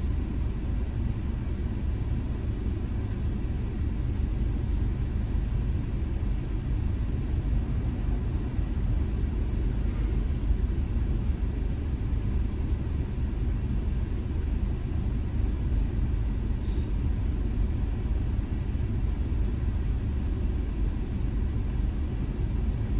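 Steady low rumble of a car's engine and tyres, heard from inside the cabin as the car moves slowly in traffic.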